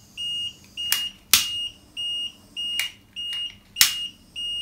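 Diamond ST-20 mixing-valve controller's built-in buzzer sounding an alarm, a high steady beep repeating about three times every two seconds, while the display shows error code E0. Several sharp clicks over the beeping are the loudest sounds.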